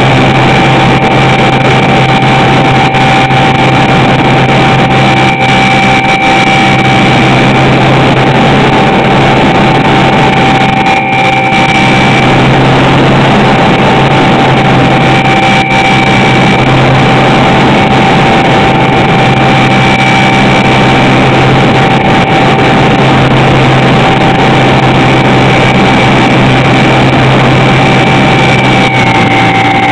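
Electric motor and propeller of a HobbyZone Super Cub RC plane in flight, heard close up from a camera mounted on the plane: a loud, steady whine over rushing air, its higher tone shifting slightly in pitch now and then.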